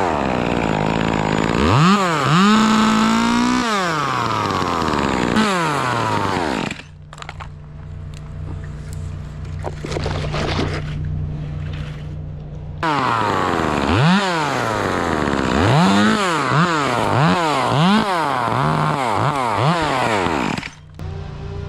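Two-stroke chainsaw revved up and down, dropping to a steady idle for about six seconds in the middle. It is then revved again in a series of quick rises and falls, and drops back to idle near the end.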